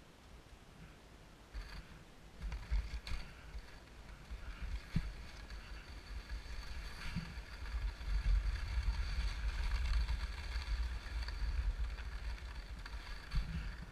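Skis sliding and scraping over groomed snow, with wind rumbling on the microphone. It starts quiet and builds from about two seconds in, loudest past the middle, with a few sharp clicks early on.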